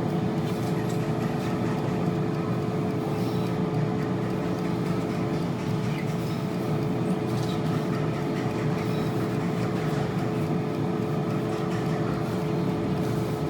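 Steady hum of a running motor, with two constant tones over a noisy drone that does not change.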